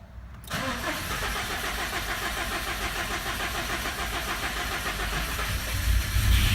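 Starter cranking the 2009 Subaru WRX STI's 2.5-litre turbocharged flat-four for about six seconds before it catches right at the end: a hard start, which happens only after the car has sat overnight and not once it is warm.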